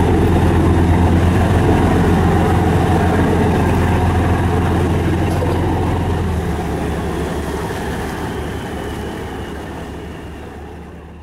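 A steady low engine drone that fades out over the last several seconds.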